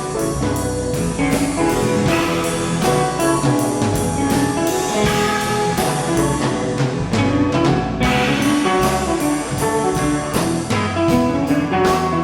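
Rock band playing an instrumental passage: guitar lines over a steady drum beat and bass.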